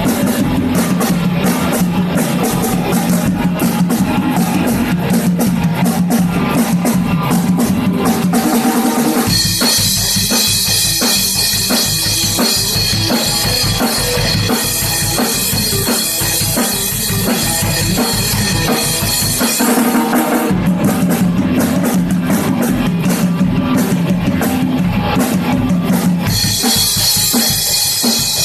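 Electric guitar and drum kit playing an original rock jam together, loud and continuous. The texture changes about nine seconds in and again near twenty seconds.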